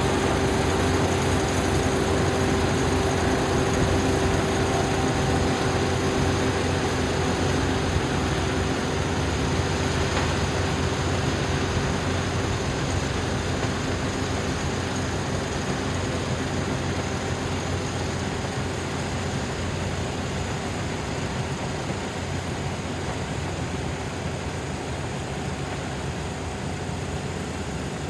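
Dynamax 470 combine harvester running steadily, its engine and threshing machinery making a dense mechanical din with a steady hum that fades about halfway through; the whole sound slowly gets quieter toward the end.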